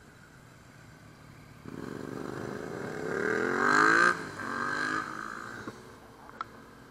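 A motorcycle engine accelerating past, its pitch climbing for about two seconds, then dropping as the throttle eases, rising briefly once more and fading away.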